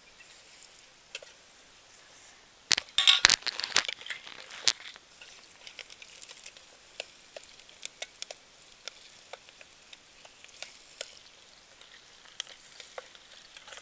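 Fresh curry leaves dropped into hot oil with sautéed onions: faint sizzling, then a loud burst of spluttering crackles about three seconds in, settling into sizzling with scattered pops.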